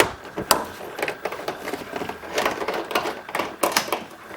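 Quick, uneven runs of sharp clicks from a hand tool unscrewing a tail-light mounting bolt, which comes out easily because it is not torqued very tight.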